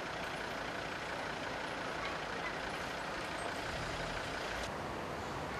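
Street traffic: a steady rush of passing vehicles, whose hiss thins out about a second before the end.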